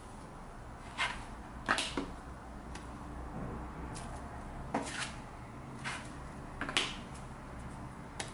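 Plastic bench scraper chopping through bread dough and tapping the table while the dough is divided into bun portions, with pieces set down on a kitchen scale: about eight short sharp taps and scrapes, several in quick pairs, over a low steady hum.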